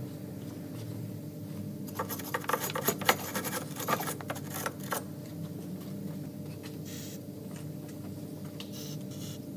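Socket ratchet clicking in quick runs as the 10mm bolts on the car's front subframe brace are undone, the clicks bunched between about two and five seconds in, with a few more later.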